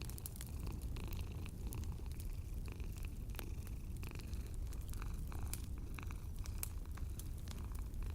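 Cat purring in a steady low rumble, with a wood fire crackling in scattered sharp pops over it.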